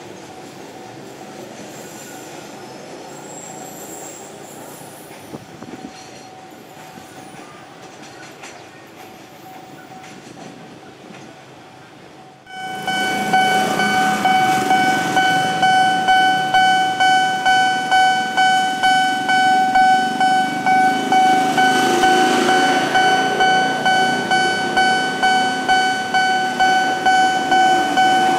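Railway freight container wagons rolling slowly over station track, with faint clicks. About twelve seconds in, a Nippon Signal electronic level-crossing alarm takes over: a loud, steady, ringing tone that pulses evenly about twice a second, warning of an approaching train.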